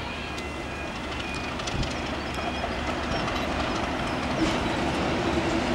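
Double-headed Class 37 diesel-electric locomotives, with English Electric V12 engines, approaching with a passenger train over pointwork, their running noise growing steadily louder.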